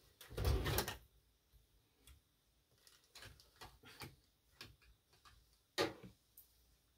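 A brief rustle right at the start, then faint, uneven ticks and clicks, with one louder knock near the end.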